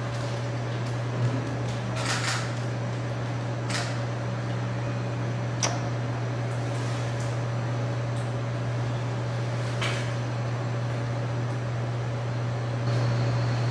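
Steady low machine hum with a faint higher tone above it, typical of ventilation or air-conditioning equipment, with a few light knocks and clicks scattered through it.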